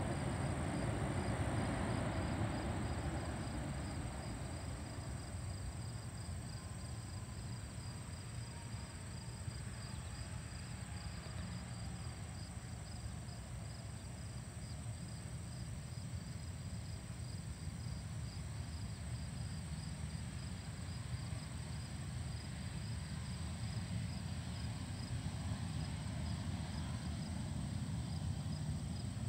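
Distant jet engine rumble from a Boeing 737-800 rolling along the runway after landing, a little louder at first, easing, then building again near the end. Insects chirp in a steady pulsing rhythm throughout.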